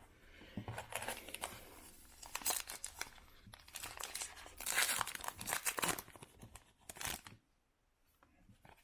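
A foil baseball-card pack wrapper being torn open and crinkled, in a series of rustling bursts that stop about a second before the end.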